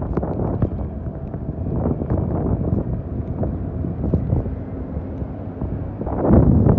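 Wind buffeting the phone's microphone in a snowstorm, a steady rumbling noise with scattered small knocks, growing louder about six seconds in.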